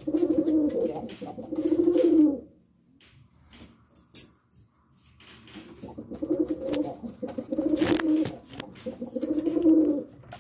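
Domestic pigeons cooing: low, rolling coos in repeated bouts, stopping for about three seconds midway and then starting up again. A single sharp click sounds about eight seconds in.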